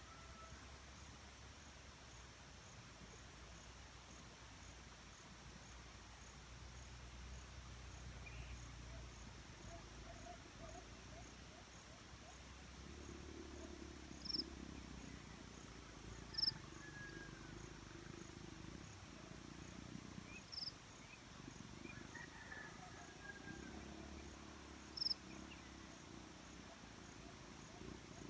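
Black-chinned fruit dove giving low, faint cooing calls, in two longer spells in the second half. Four short, sharp high-pitched notes cut in over it, and a faint insect ticks steadily in the background.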